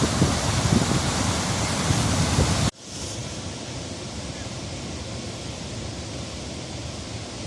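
Waterfall swollen by heavy rain, a loud steady rush of water. About two and a half seconds in it cuts off abruptly to a much quieter steady hiss.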